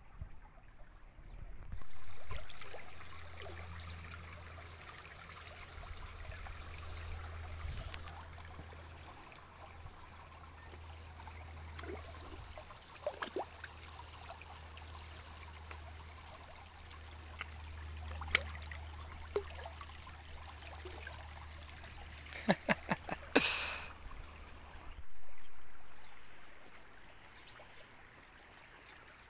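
Shallow stream water trickling and splashing as New Zealand longfin eels thrash at the surface to feed. There are a few sharp splashes about halfway through and a quick cluster of them a little before the end.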